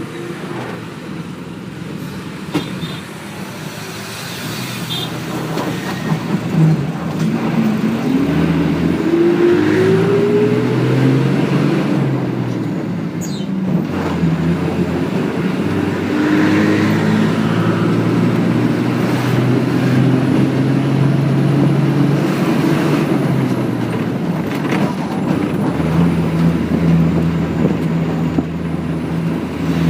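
Bus travelling, heard from inside: its engine drones over road noise. The engine pitch climbs and grows louder in the first third as the bus picks up speed, then holds fairly steady.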